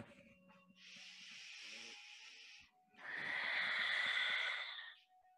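A person breathing audibly while moving through yoga poses. A soft inhale about a second in is followed by a louder, breathier exhale of about two seconds.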